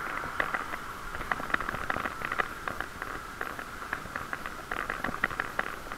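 Bicycle riding noise: many irregular light clicks and rattles from the moving bike over a steady rushing noise.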